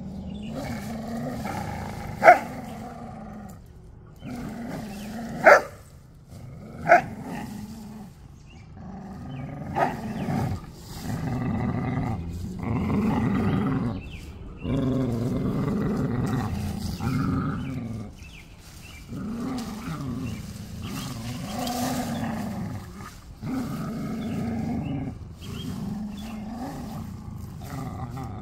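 Chow Chow and Australian Shepherd growling in play while tugging a vine between them: long low growls in stretches of one to four seconds, broken by brief pauses, with a few short, sharp sounds in the first ten seconds.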